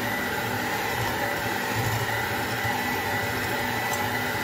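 Electric hand mixer running steadily at a constant speed with a steady whine, its beaters whipping egg whites into foam in a glass bowl.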